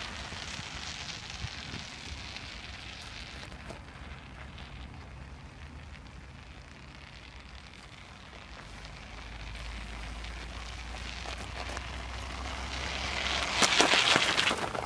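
Studded ice tyres of a 29er mountain bike rolling over snow-covered ice, a rough hiss. It swells to its loudest near the end as the bike passes close by.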